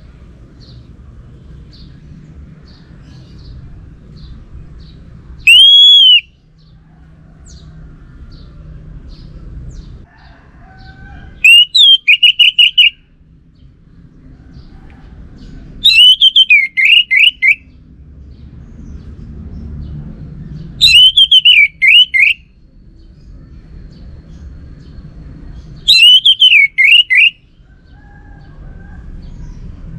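Orange-headed thrush singing: loud whistled phrases of quickly repeated falling notes, one about every five seconds, with faint high chirps in between over a low background rumble.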